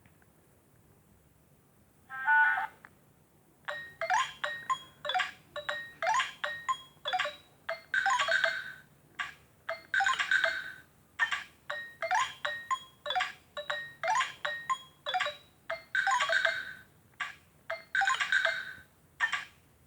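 Nokia 105 (RM-908) phone playing one of its built-in ringtones through its small speaker. A brief tone sounds about two seconds in, and from about four seconds a quick melody of short notes follows, stopping shortly before the end.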